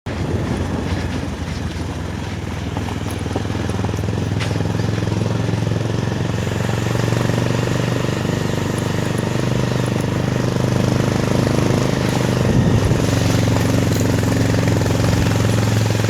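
A motor running steadily, a low hum that grows a little louder over the first several seconds.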